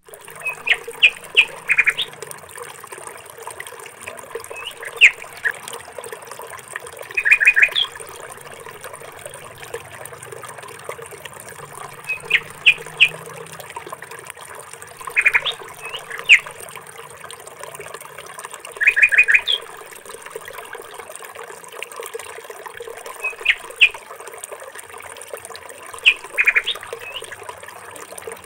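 Small birds chirping in short clusters of quick high notes every few seconds, over a steady faint background hiss.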